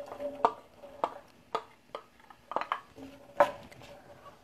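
A cooking utensil knocking and scraping against a glass bowl and a stainless steel skillet as chopped onion is tipped into the pan: about a dozen short, sharp clinks and taps at uneven intervals.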